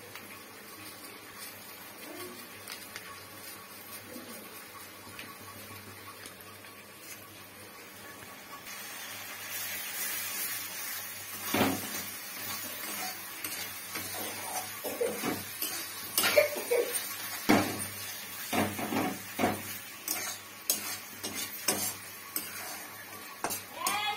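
A metal spatula scrapes and knocks irregularly against a steel kadai as sauce-coated paneer and vegetables are stirred, over a frying sizzle. For the first several seconds there is only a quieter steady hiss. The sizzle grows louder about nine seconds in, and the sharp scrapes and clicks come in a few seconds later.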